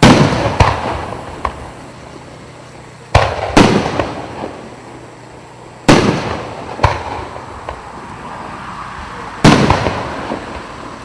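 A 3-inch, 36-shot consumer fireworks cake firing: a loud bang roughly every three seconds, each followed by one or two smaller pops and a crackle that fades away.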